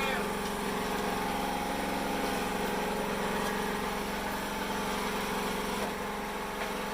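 Engine running steadily at an even idle, a constant low hum with no change in speed.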